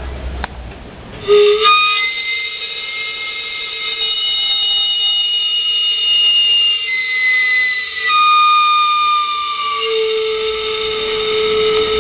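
Steam whistle of a sweet-potato (camote) vendor's cart, sounding once its valve is opened: a loud, high whistle of several tones at once that starts about a second in and shifts in pitch now and then.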